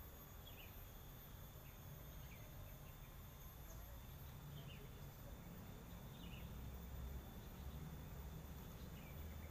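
Faint natural ambience of insects, with a steady high thin buzz. Short falling chirps come about once a second over a low rumble.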